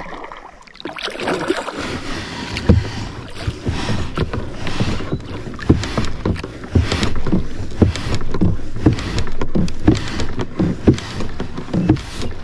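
Kayak being worked into the bank, its hull scraping and bumping along the shallow bottom and shore. From about a second in there is a steady scraping, with repeated knocks roughly every half second to a second.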